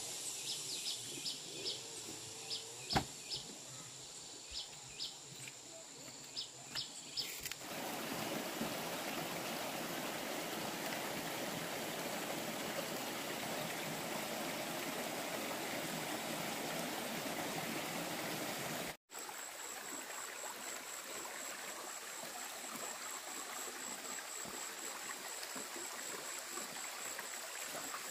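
Running water of a shallow rocky stream, an even rushing that sets in about a quarter of the way in. Before it, scattered light ticks over a steady high tone; in the last third the stream goes on with a high pulsing whine above it.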